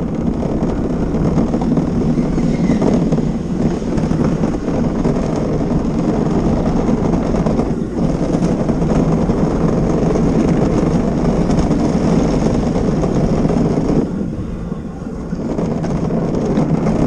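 Luge cart's wheels rolling fast over the concrete luge track, giving a steady rolling noise. The noise dips briefly about eight seconds in and is quieter for a moment near the end.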